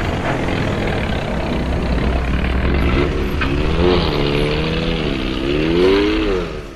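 Dubbed-in truck engine sound effect revving, its pitch rising and falling several times in the second half.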